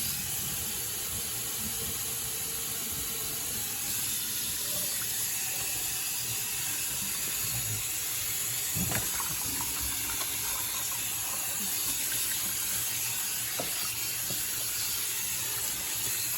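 Kitchen sink tap running steadily into a sink of water, with a few faint knocks around the middle.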